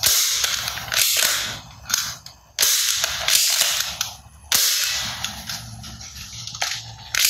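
Toy gun sound effects: about six sharp gunshot-like bangs at uneven intervals, each trailing off within about a second.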